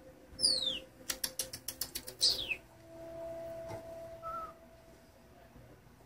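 Senegal parrot giving two sharp, high whistles that fall in pitch, with a quick run of about eight clicks between them. Then a steady, lower tone holds for about three seconds, with a short faint chirp partway through.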